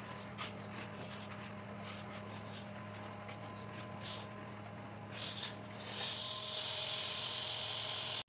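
Rotary carpet-extraction machine running on a rug, a steady motor hum with short hissing strokes of spray and suction. About six seconds in the hum stops and a louder, steady hiss of air takes over until a sudden cut.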